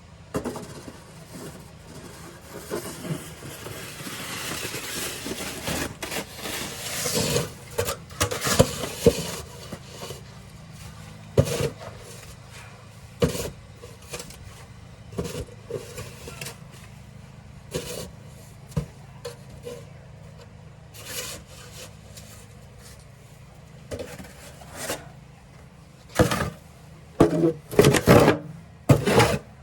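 Snow shovel scraping and pushing snow in irregular strokes, one every second or two, with a quicker run of scrapes near the end.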